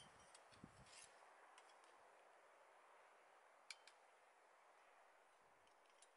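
Near silence: a faint steady hiss with a few light clicks, a couple near the start and a pair about four seconds in, from small objects being handled.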